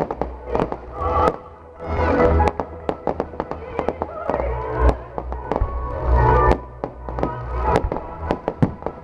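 Fireworks display: a rapid, irregular run of sharp pops, cracks and bangs from bursting shells and crackling stars, with music playing underneath.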